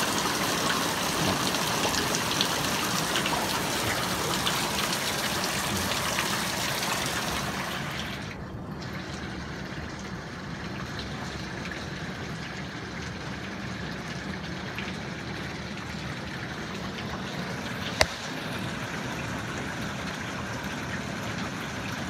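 Hailstones falling in a heavy hailstorm: a dense, steady hiss of stones striking the ground and cars. About eight seconds in it turns quieter and duller. A single sharp click comes about eighteen seconds in.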